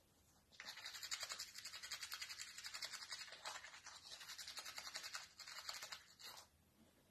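Toothbrush scrubbing teeth in quick, rhythmic back-and-forth strokes. It starts about half a second in and stops shortly before the end.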